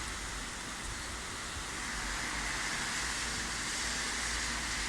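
Steady rain with the whoosh of car tyres on a wet road, swelling gently as a car passes.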